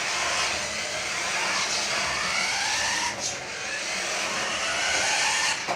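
Small battery-powered motors of toy remote-control cars whining, the pitch rising and falling as the cars speed up and slow down.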